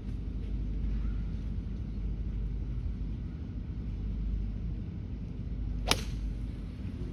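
A golf club striking a ball off the tee: a single sharp crack about six seconds in, over a steady low background rumble.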